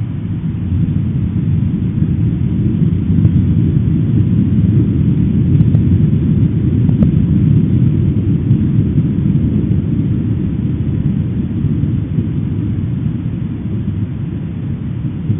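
Deep, loud rumbling roar of an explosive eruption of Popocatepetl volcano, swelling over the first couple of seconds, holding strongest through the middle, then easing slightly.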